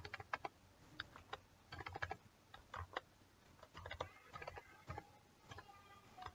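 Faint typing on a computer keyboard: irregular runs of key clicks with short pauses, as a word is typed, deleted and retyped.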